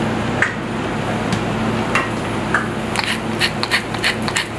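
Pepper mill grinding, a quick run of dry clicks starting about three seconds in, after a few scattered light clicks and taps. A steady low hum runs underneath.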